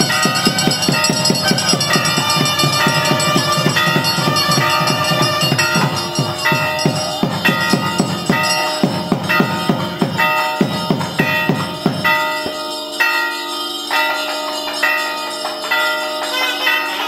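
Ceremonial temple music: fast, steady drumming under a held melody that moves in steps. The drumming stops about twelve seconds in while the melody carries on.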